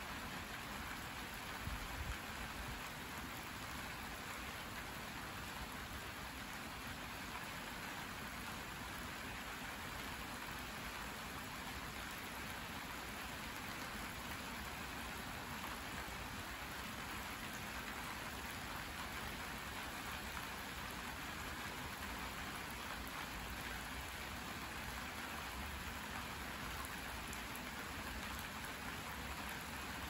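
Steady rain falling, an even hiss with no change in strength, and a couple of brief knocks about two seconds in.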